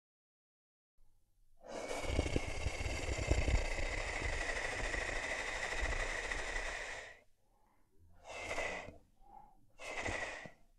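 Dinosaur roar sound effect presented as a Tyrannosaurus rex. One long roar of about five and a half seconds begins about two seconds in. Two short roars of about a second each follow near the end.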